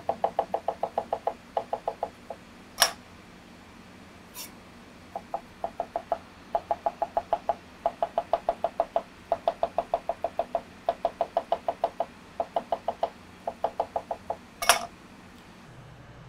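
Chinese cleaver tapping rapidly on a plastic cutting board while slicing a cucumber into accordion-style cuts. The taps come about eight a second in short runs with brief pauses between them. A few sharper single knocks stand out, the loudest near the end.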